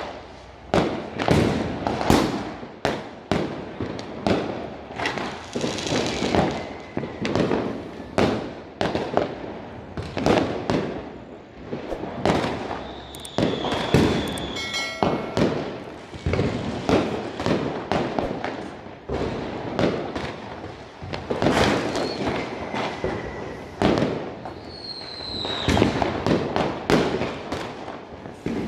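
Many Diwali firecrackers and aerial fireworks going off at once: an irregular run of sharp bangs and pops, several a second, with a few short whistles among them.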